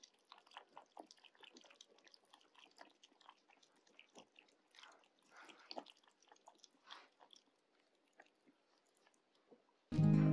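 Two kittens eating from a bowl: faint, irregular chewing, smacking and small clicks. Music starts suddenly near the end.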